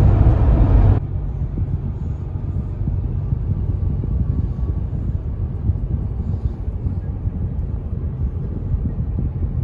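Steady low road rumble and engine hum inside a moving car's cabin, a little quieter from about a second in.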